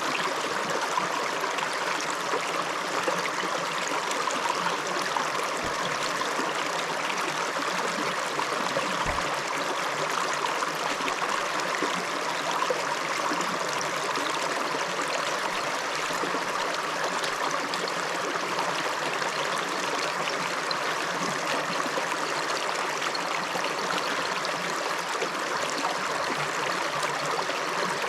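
Shallow river flowing steadily over stones, an even rushing and trickling of water with no pauses.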